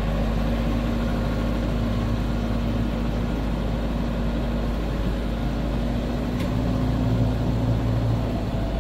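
Truck engine running steadily under load as it pulls a boat on its trailer up from the beach, heard from inside the cab: a low drone with a steady hum, swelling slightly near the end.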